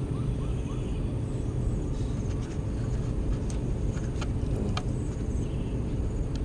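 Steady low outdoor rumble, with a few faint clicks near the middle.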